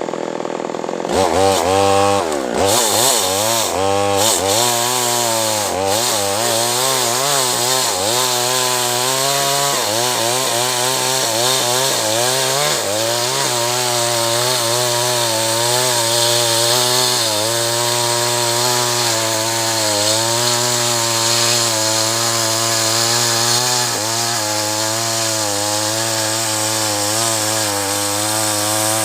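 Petrol chainsaw cutting acacia wood. It revs up about a second in, its pitch rising and dipping repeatedly for several seconds as the chain bites, then runs at steady high revs under load.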